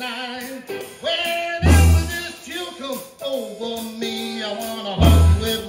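Electric blues band playing live, with electric guitars and bass guitar. Heavy accented hits land about two seconds in and again near the end.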